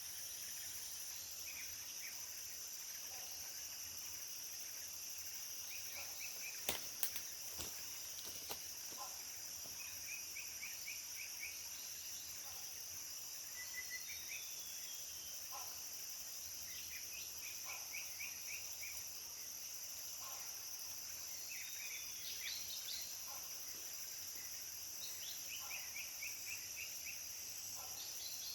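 Tropical forest ambience: a steady high-pitched insect drone, with birds calling in short rapid trills every few seconds, and a few sharp clicks about seven to eight seconds in.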